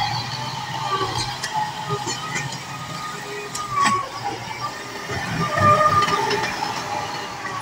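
Kubota M9540 tractor's diesel engine running under load as it pushes and levels loose dirt with its front blade, with a sharp knock about four seconds in.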